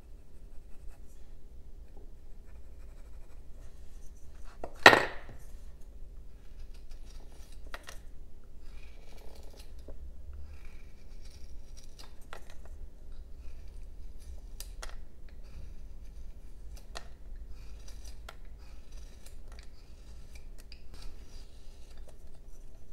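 Carving knife slicing and paring a basswood block: short cutting strokes and scrapes with scattered small clicks. About five seconds in, a single sharp knock is the loudest sound.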